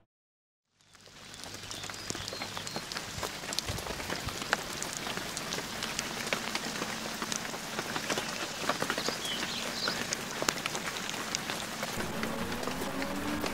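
Rain falling on puddles and wet ground: a steady patter dense with individual drops ticking. It fades in about a second in, after a moment of silence.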